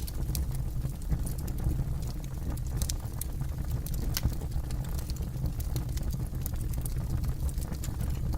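Wood campfire burning, with scattered sharp crackles and pops over a steady low rumble of the flames; one louder pop about four seconds in.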